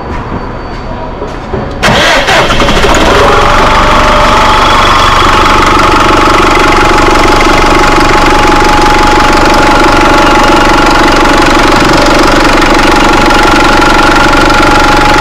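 Bus diesel engine starting about two seconds in, then running steadily with a steady whine over it. This is its first run after the air compressor was replaced.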